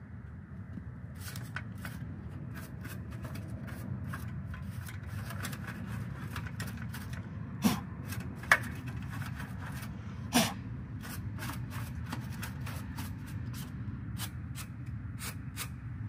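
Hands working with tools and parts: scattered clicks and light rubbing, with three louder knocks in the middle, over a steady low hum.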